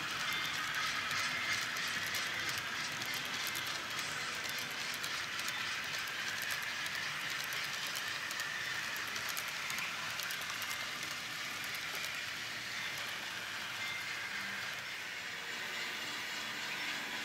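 N-scale model train cars rolling along the track: a steady whirr of small wheels on rail with rapid faint clicking over the rail joints.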